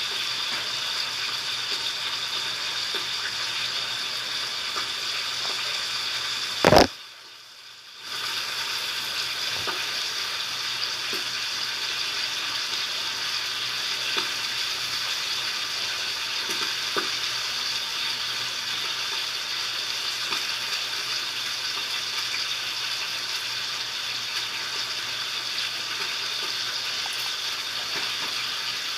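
Foam slime being squished and worked, giving a steady crackling, sizzle-like hiss with faint small pops. There is one sharp click about seven seconds in, then the sound drops away for about a second before the crackling resumes.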